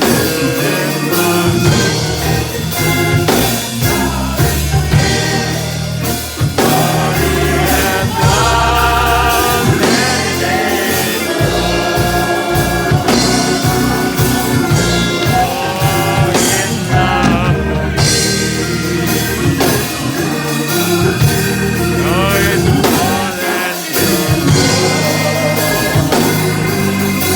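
Gospel music: voices singing over a band with a drum kit, keeping a steady beat.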